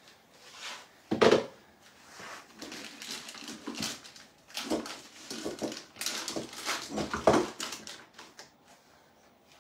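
Wooden spatula scraping and tapping cream into a plastic piping bag, with the plastic crinkling in irregular scratchy bursts. The sharpest knock comes about a second in.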